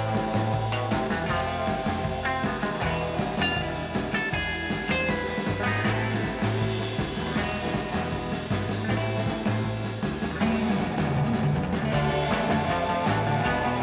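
Background rock music with guitar over a stepping bass line.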